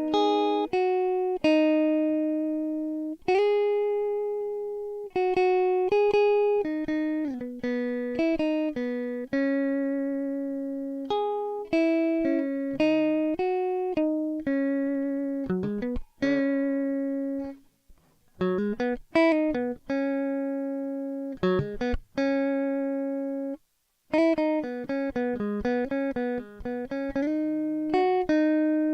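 Background music: a solo guitar track of plucked notes and chords, each ringing out and fading, with a couple of brief pauses.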